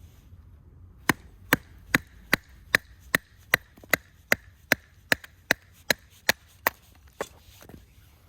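Firewood being split by repeated strikes: about sixteen sharp, evenly paced knocks, roughly two and a half a second, stopping near the end.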